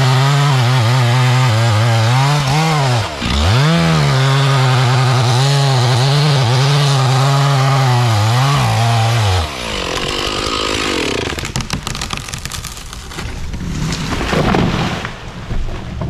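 Two-stroke chainsaw cutting into a standing tree at full throttle, easing off briefly about three seconds in and then letting off about nine seconds in. Then wood cracks and the tree falls with a crash near the end.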